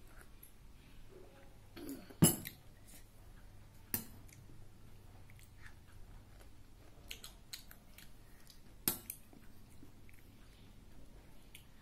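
A glass tumbler set down on a table with a sharp knock about two seconds in. After it come quieter clicks and knocks of a metal spoon in a ceramic bowl, and soft chewing.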